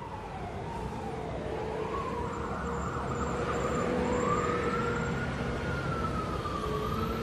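A siren wail in the soundtrack, sliding slowly down, up and down again, over a steady lower tone and hiss, and growing louder throughout.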